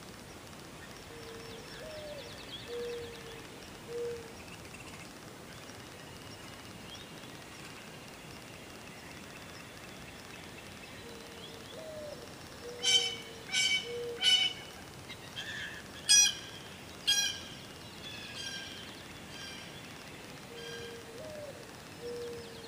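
Wild birds calling: a low, soft four-note call, its second note sliding up and back down, comes three times about ten seconds apart. Loud sharp calls come in the middle, three quick ones and then two more, with fainter high chirping throughout.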